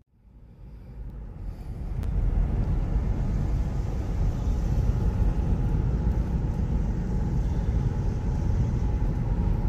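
Car on the road: a steady low rumble of road and engine noise that fades in over the first two seconds.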